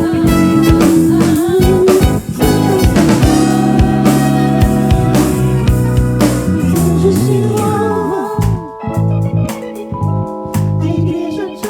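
Live gospel band playing an instrumental passage between sung lines, with drum kit, bass, electric guitar and keyboards. About eight and a half seconds in, the drums mostly drop away, leaving sustained keyboard chords with a few scattered hits.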